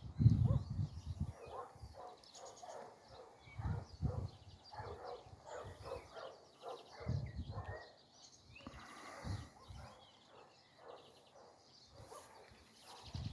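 Rural outdoor ambience: animals calling again and again, with small birds chirping higher up. Several low rumbles, the loudest near the start, come and go.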